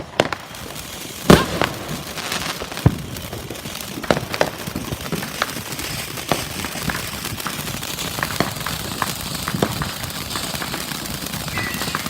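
Consumer firework going off: a steady crackling hiss with many scattered sharp pops, the loudest bang about a second in.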